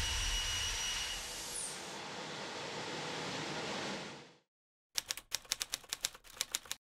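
Rotating detonation combustor running: a steady rushing noise carrying a high whine that stops about a second in, the whole sound fading out by about four seconds. After a brief silence, a quick run of about a dozen keyboard-typing clicks.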